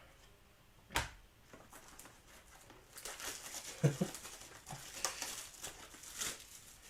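Plastic wrapping crinkling and tearing as a sealed trading-card hobby box is opened, with a sharp click about a second in and some light knocks of handling.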